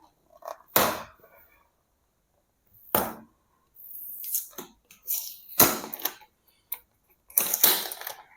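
Keyboard box packaging being handled and pulled open by hand: a series of separate sharp rips and rustles with short pauses between, the loudest a little past halfway and near the end.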